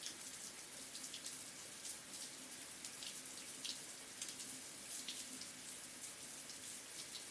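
Water spraying steadily from a shower head: an even hiss with many small splashes and spatters.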